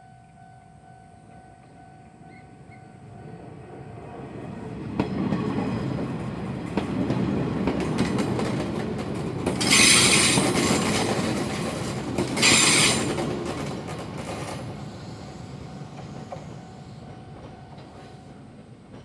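Izuhakone Railway Daiyuzan Line electric train approaching and passing, its running rumble and wheel clatter building, peaking and fading away. Two short, loud, high-pitched bursts come in the middle of the pass, a few seconds apart.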